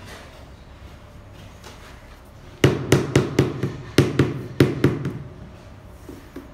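A large ceramic floor tile being knocked down into its mortar bed to seat and level it: a quick series of about ten dull knocks in two runs, starting a little over two seconds in.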